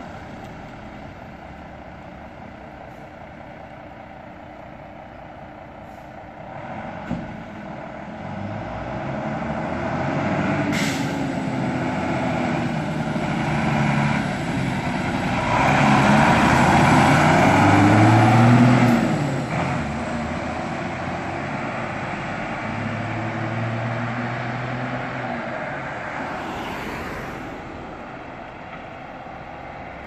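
Fire engine's diesel engine pulling away and driving past, revving up through the gears, loudest as it passes a little past the middle, then fading into the distance. A brief hiss about eleven seconds in.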